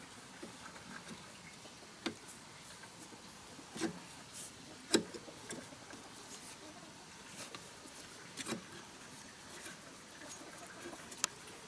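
Scattered metallic clicks and scrapes of a hand tool working on a fitting of a stopped diesel engine, about five in all, the sharpest about five seconds in.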